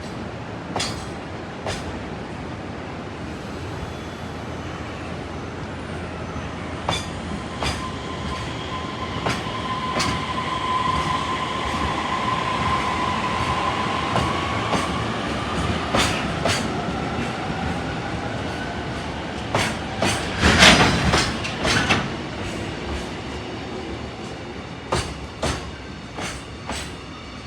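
A train running through the station: a steady rail rumble with wheels clacking over rail joints, and a drawn-out squeal that rises slowly in pitch. A cluster of loud clacks comes about twenty seconds in.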